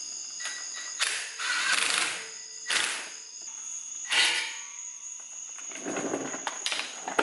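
Crickets trilling steadily, with several short bursts of scraping or rustling noise over them.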